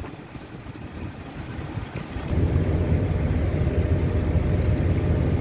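Low, steady rumble of wind buffeting the microphone aboard a boat on the water. It gets much louder about two seconds in.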